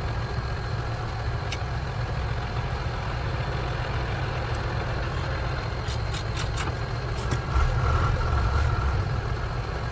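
A truck's engine running steadily, heard from inside the cab, with a handful of short sharp clicks about six seconds in and the engine getting louder a little after.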